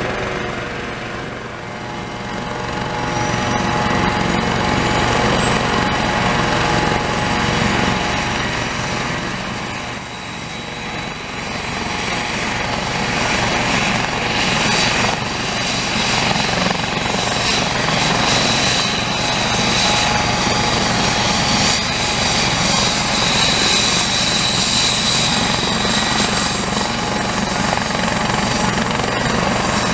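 Aérospatiale SA 365F Dauphin 2 helicopter running on the ground before takeoff, its two Turboméca Arriel 2C turboshafts driving the turning main rotor. A steady rotor beat and engine rush, with a high thin turbine whine that grows plainer from about halfway through.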